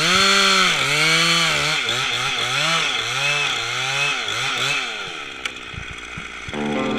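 Chainsaw cutting wood, its engine pitch repeatedly dropping under load and rising again about once a second. The saw eases off about five seconds in, and guitar music starts near the end.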